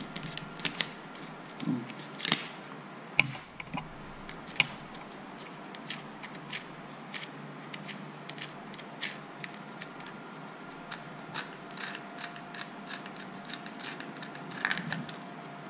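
Ratchet wrench with a 14 mm socket clicking as it unscrews a nut inside a motorcycle turn-signal stalk, about two light clicks a second, with a few louder knocks from handling the parts in the first five seconds.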